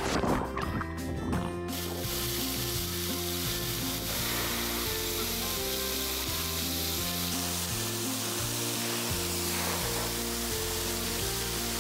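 Background music with a steady hiss of spraying water from splash-pad fountains, starting about two seconds in after a few short splashes.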